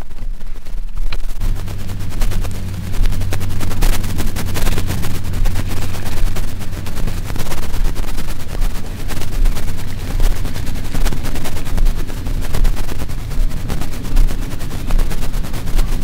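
Harsh, crackling rumble of wind buffeting the camera's microphone, loud and unbroken, starting about a second in.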